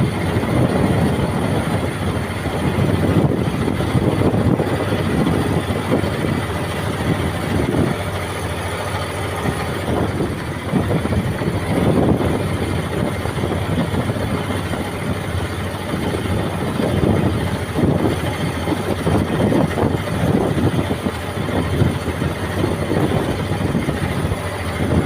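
Squid-fishing boat's engine running steadily at sea, with an uneven rushing noise over it that rises and falls.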